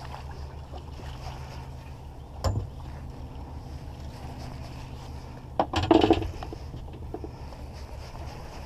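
Boat motor running steadily at low speed, a low even hum, while the boat slowly pulls planer boards. A sharp knock about two and a half seconds in and a louder cluster of knocks around six seconds in.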